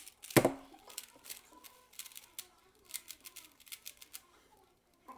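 Rubik's cubes being turned fast in a speed solve: quick, irregular clicking of the plastic layers, with a loud thump about half a second in.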